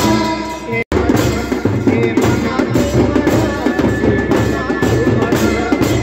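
Loud, driving drumming on large steel-shelled drums beaten with sticks, with small hand cymbals clashing along in a fast, even rhythm. A voice singing through a microphone is heard in the first second, and the sound cuts out for an instant just before the drumming goes on.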